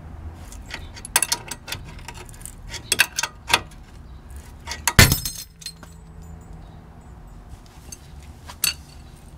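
A ball joint separator is tightened against the lower control arm of a 2009 Hyundai Accent: a run of sharp metallic clicks and clinks, then a loud bang with a short ring about five seconds in as the worn ball joint pops out of the control arm. A lighter clink follows near the end.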